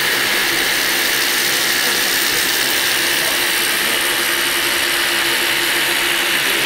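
Heavy construction machinery running steadily: a loud, unbroken mechanical noise, mostly high hiss with a faint hum under it.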